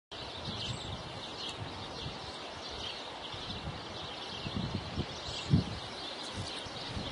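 Outdoor ambience: many small birds chirping over a steady hiss, with a few low thumps in the second half, the loudest about five and a half seconds in.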